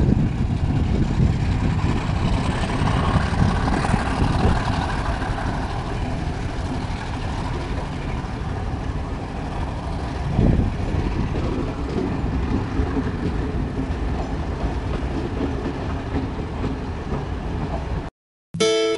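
Express train of Chinese-built passenger coaches rolling past close by: a steady rumble of wheels on the rails, with a brief louder burst about ten seconds in. Near the end the sound cuts off and music begins.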